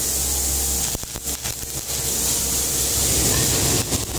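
Stick-welding arc crackling and hissing as a burning electrode lays weld on galvanized-iron pipe, sputtering and briefly breaking up about a second in before running steady again.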